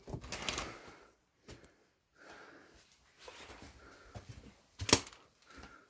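Scuffs and knocks in a small room, with one sharp knock about five seconds in, the loudest sound.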